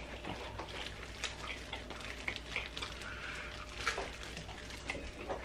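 Two people eating chicken wings: quiet, irregular chewing and lip-smacking clicks over a faint low hum.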